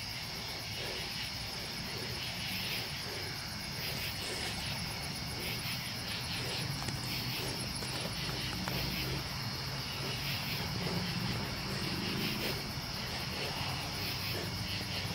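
Crickets chirping in a steady night chorus, with a low hum underneath.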